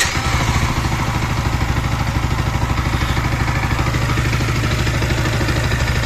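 Yamaha R15 V3's single-cylinder, liquid-cooled 155 cc engine idling steadily just after starting, with an even pulse. This is after a water pump oil seal repair and a radiator coolant refill, and the engine sounds smooth.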